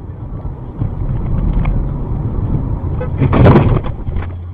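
Driving noise picked up by a car's dashcam: a steady low rumble of road and engine. About three and a half seconds in comes a sudden loud, rough noise lasting about half a second, as a white car comes right alongside.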